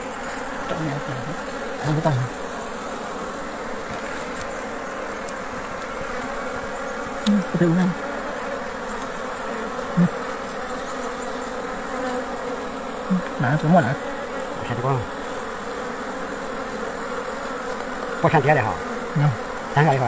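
Steady buzzing of a swarm of wild honeybees around their nest as its honeycomb is pulled out. A few short low sounds come now and then over the buzzing.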